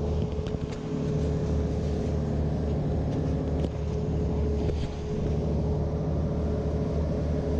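Fishing boat's inboard engine running at speed, a steady low drone with a constant whine, over the rush of water from the wake.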